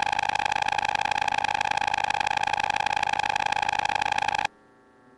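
Modular synthesizer drone: a steady, buzzy pitched tone with a fast, even pulsing. It cuts off abruptly about four and a half seconds in, leaving a faint low hum.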